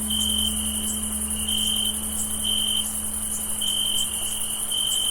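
Crickets chirping, a high trill of about half a second repeating roughly once a second, over a steady high insect hiss. A faint low hum fades out near the end.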